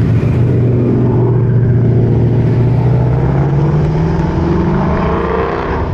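Cars rolling slowly past along a race-track pit lane, engines running at low revs: a Ford Mustang passes close, followed by a Mazda MX-5. The low steady engine drone rises slightly in pitch through the middle.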